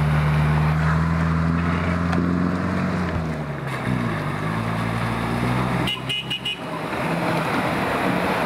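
Off-road vehicle engine running steadily, its pitch dipping and then climbing again about four seconds in. A brief cluster of short high beeps comes about six seconds in.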